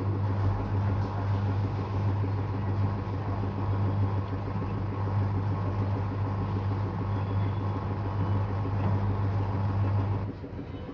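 Washing machine on its high-speed spin cycle (around 1000 rpm), running with a steady low hum while it vibrates heavily standing without anti-vibration pads. The hum cuts off suddenly about ten seconds in, leaving a quieter sound.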